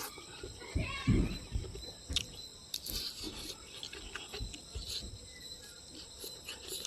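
Close-up eating sounds: chewing and mouth noises over fish curry, with a few low thumps about a second in and scattered small clicks.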